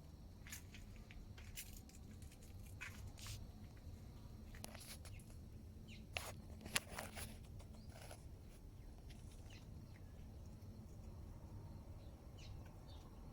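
Faint background ambience: a steady low rumble with scattered soft clicks, two sharper clicks about six and a half seconds in, and a few short high chirps near the end.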